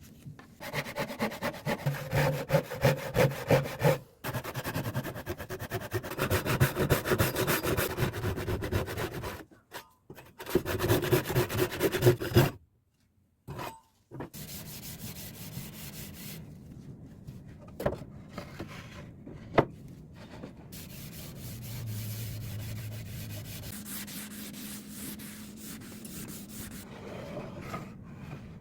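Wood being sanded, a rapid rasping rub in several loud stretches through the first twelve seconds or so, broken by short pauses. After that comes a quieter stretch with a couple of sharp clicks.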